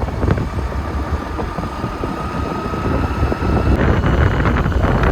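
Wind buffeting the microphone: a heavy, uneven low rumble, with a faint thin high tone over the first few seconds.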